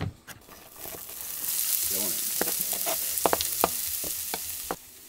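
Diced onion and carrot tipped into a hot, oiled frying pan, sizzling loudly as they start to fry, with a few sharp clicks along the way. The sizzle builds over the first second or so and cuts off abruptly near the end.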